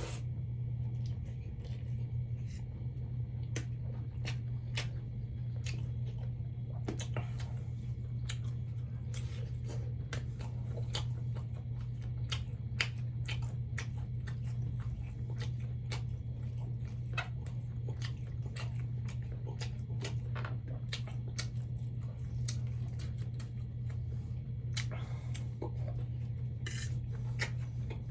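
Close-up eating sounds: chewing spicy ramen noodles and fried shrimp, with many short wet mouth clicks over a steady low hum.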